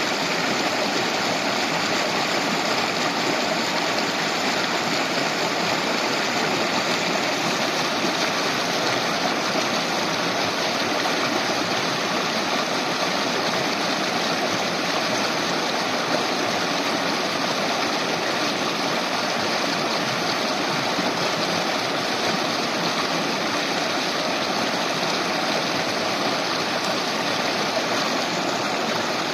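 Shallow mountain stream flowing over rocks, a steady, even rush of running water.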